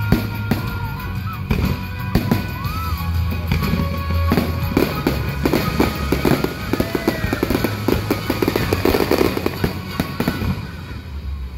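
Fireworks bursting over show music, with a dense run of rapid crackling pops in the middle that thins out near the end.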